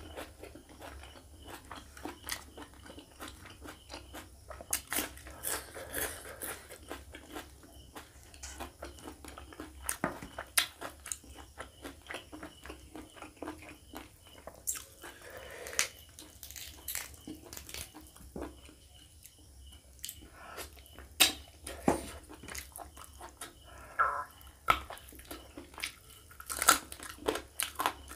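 Close-miked chewing and mouth sounds of a person eating chicken curry and rice by hand, with sharp wet clicks and smacks at irregular intervals.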